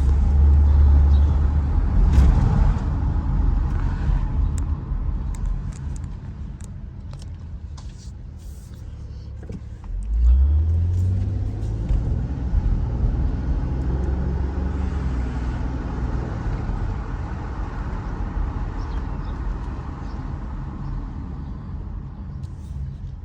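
A 2009 Saturn Vue on the road, heard from inside the cabin: the engine pulls loudly at first and then eases off as the car slows over several seconds. About ten seconds in it accelerates again, the engine note rising, and then settles into a steady drive with road noise and scattered small clicks.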